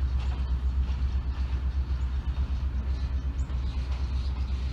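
Diesel locomotive engine idling: a steady low rumble.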